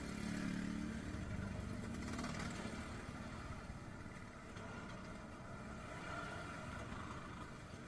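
Faint steady background hum with no speech: a low drone for about the first second and a half, then fading into quiet room ambience.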